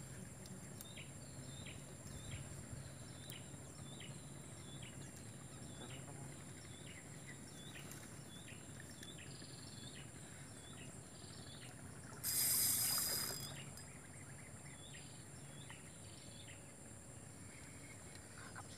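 Outdoor waterside ambience: a short falling chirp repeated about twice a second over a steady high hiss, with one loud rushing burst lasting about a second, roughly twelve seconds in.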